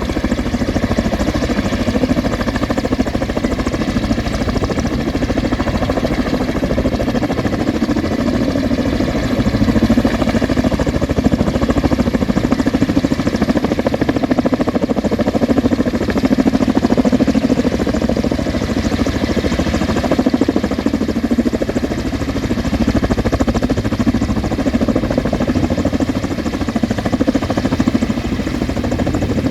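Firefighting helicopter's engine and rotor running steadily, a loud continuous drone with no break.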